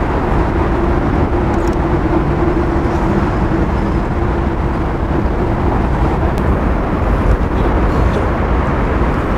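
Steady rumble of road traffic, with a steady hum that fades out about six seconds in.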